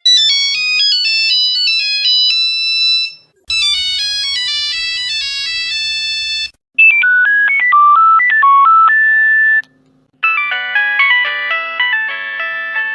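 Four Nokia mobile phone ringtones played one after another, each a few seconds of electronic melody, separated by brief silences. The first two are high and thin; the later two have lower, fuller notes.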